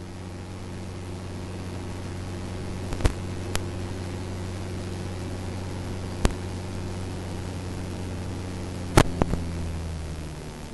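Jabiru light aircraft's engine and propeller droning steadily in the cockpit, with several sharp clicks, three of them in quick succession near the end. The engine note drops just before the end.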